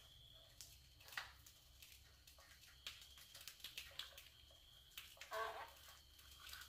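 Near silence broken by faint scattered clicks and scratches, with a brief louder scrape about five seconds in: a rat moving around a wire-mesh cage trap.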